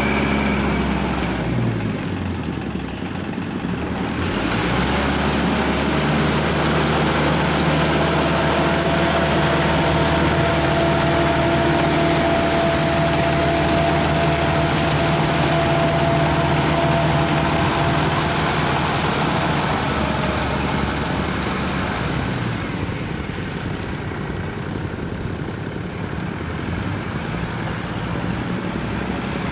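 Kubota tractor's diesel engine running steadily under load as it drives a rotary tiller through flooded paddy mud. The engine note drops and comes back during the first few seconds and is quieter over the last several seconds.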